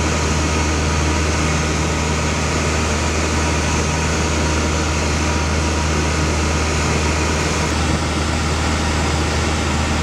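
Cabin noise of a light single-engine propeller airplane in flight: the engine and propeller make a loud, steady drone with a strong low hum.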